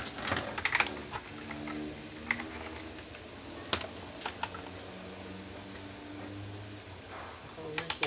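Scattered sharp clicks and knocks of hands handling a plastic box fan's housing and power cord, over a faint steady low hum.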